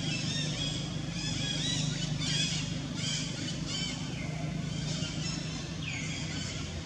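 Macaque screaming in distress: a rapid run of short, high-pitched squealing calls, thinning out after about four seconds, with a steady low hum underneath.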